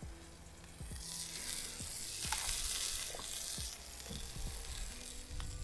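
Beef burger patties sizzling in a hot pan, a steady hiss that swells from about a second in and eases off near the four-second mark, with a few light taps.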